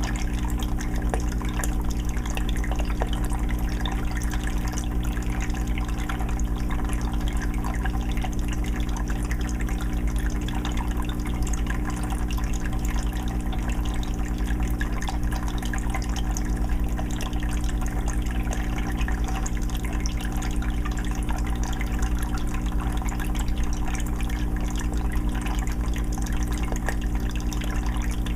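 Aquarium water filter running: water steadily trickling and splashing back into the fish tank, over a steady low hum.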